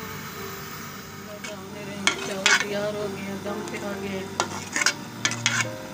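A metal spoon stirring and scraping cooked rice in a metal cooking pot. There is a series of sharp scrapes and clinks from about two seconds in, thickest near the end.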